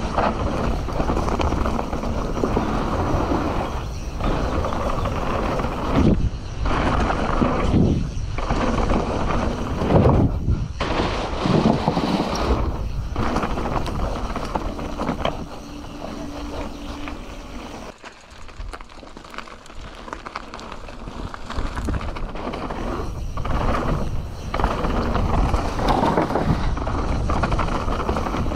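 Mountain bike (Canyon Torque CF 9) descending a dirt trail: a steady rumble and rattle of knobby tyres and the bike over rough ground, mixed with wind noise on the microphone, and several short breaks in the noise. About two thirds of the way through, the noise falls away for a few seconds, then builds again as riding resumes.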